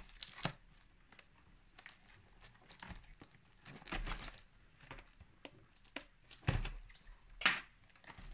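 Cardboard box being opened by hand: irregular rustles, scrapes and light knocks of packaging, the loudest near the end.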